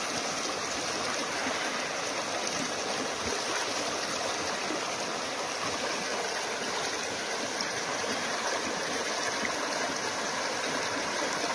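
Shallow creek water flowing steadily over stones, with water swishing as a gravel-filled classifier sieve is shaken in a plastic tub of water to wash gold down through the mesh.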